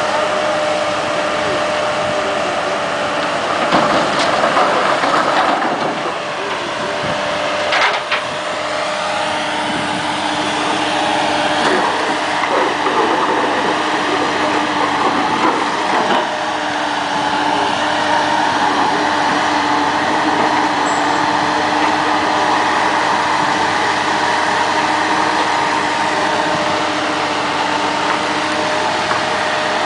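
Engine and hydraulics of an amphibious dredging excavator running steadily with a constant whine, and a few sharp knocks as its grapple bucket works.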